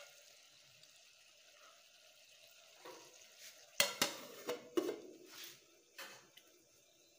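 Beef sizzling quietly in an aluminium pot, then an aluminium plate clanking onto the pot as a lid: several sharp metal knocks and clinks from about four seconds in.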